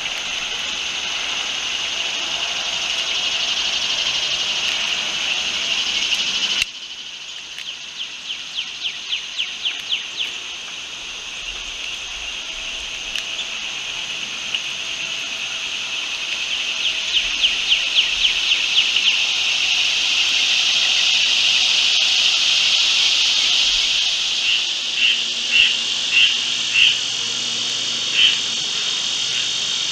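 Steady high chorus of insects such as crickets, which drops suddenly about six and a half seconds in and then builds back up. Over it come two runs of rapid chirping ticks, about four or five a second, and a few separate chirps near the end.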